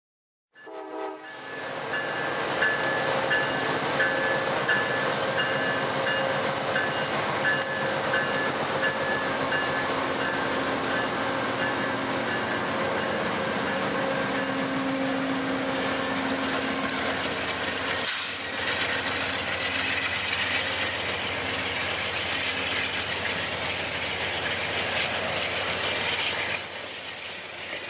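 VIA Rail P42DC diesel locomotive hauling a passenger train past the platform, its engine running, with a horn sounding and wheels clicking over the rail joints. A single sharp clunk comes about two-thirds of the way through, and a high wheel squeal sets in near the end.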